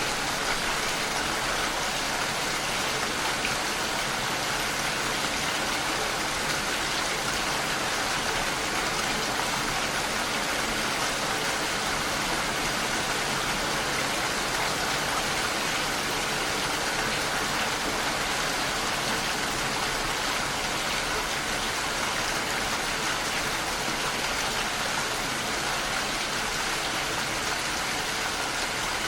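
Steady rain falling: an even, unbroken hiss of many raindrops, strongest in the upper range.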